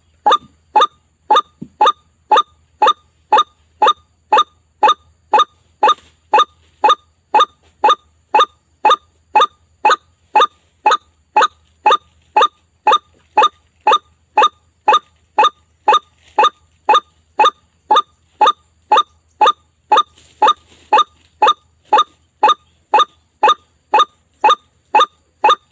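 White-breasted waterhen (ruak-ruak) call played as a lure recording: one short note, rising in pitch, repeated evenly about twice a second.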